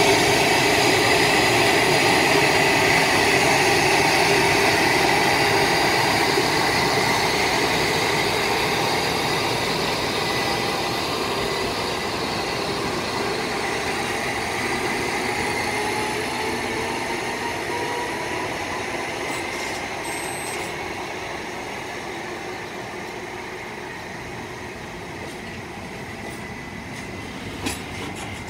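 EF510 electric locomotive hauling a container freight train away slowly from a standstill: the steady whine of its motors and blowers over the rumble of wheels on rail, with one tone rising as it gathers speed. The sound fades steadily as the locomotive and container wagons move off, and a couple of sharp clicks come near the end.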